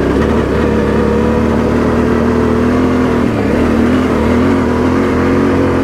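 Motorcycle engine pulling uphill under load at fairly steady revs, its pitch wavering slightly as the throttle changes.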